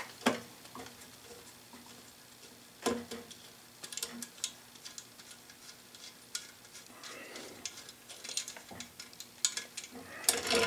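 Light, irregular metallic clicks and taps of a wrench working the last mounting bolt of a drill press motor, with a few sharper knocks as the bolt and the motor shift against the mount.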